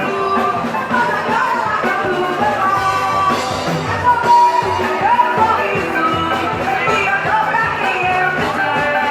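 Frevo band playing live, a fast melodic lead line over electric bass and drum kit, in an instrumental passage of the song.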